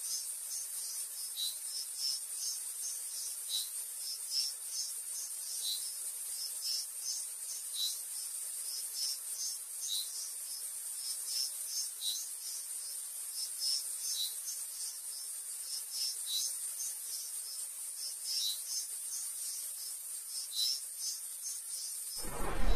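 Insects calling: a steady high-pitched buzz with rapid, repeated high chirps over it, and a slightly lower chirp about every two seconds. Near the very end it gives way abruptly to a louder rushing noise.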